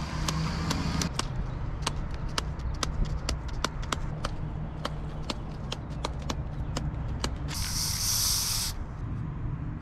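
Sharp taps, about two or three a second, as a paint-loaded brush is knocked to flick white specks of paint for stars. About eight seconds in, an aerosol spray-paint can hisses in one burst of about a second.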